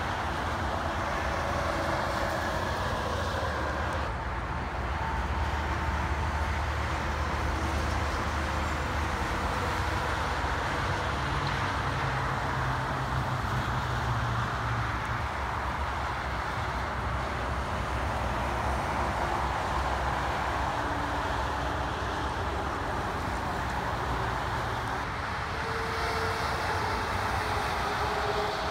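Steady noise of busy multi-lane highway traffic, with cars and heavy trucks passing. A low diesel engine drone is strongest through the first half.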